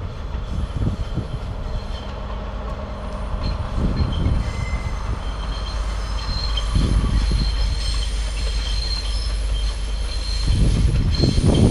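A train rounding a curve, its wheels squealing against the rails in several steady high tones over a low rumble. The squeal grows clearer about halfway through.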